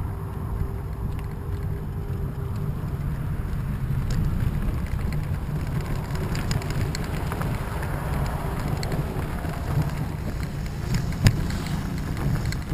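Wheels rolling with a steady low rumble, first over pavement and then over a gravel drive, where small crunches and ticks of stones come in from about four seconds in. One sharper knock near the end.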